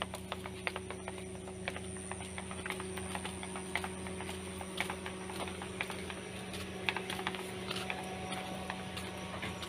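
Footsteps crunching on a gravel road, an irregular run of small sharp clicks and scuffs, over a steady low hum.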